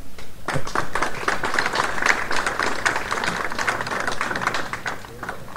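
Audience applauding: a dense patter of many hand claps that starts about half a second in and dies away near the end.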